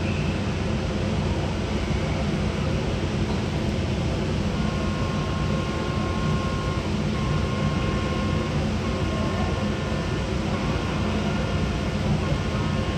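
Steady low rumble of the Tokai Kisen ferry Salvia Maru's engines and ventilation machinery, heard from the deck, with a faint thin whine coming and going from about four seconds in.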